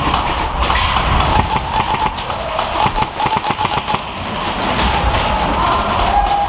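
Rapid airsoft gunfire: electric airsoft guns firing in long strings of fast clicks, with the whine of the guns' motors.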